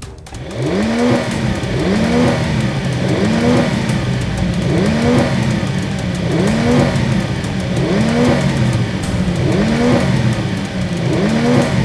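A vehicle engine sound effect revving over and over. Each rev is a rising pitch that levels off, repeating about every second and a third.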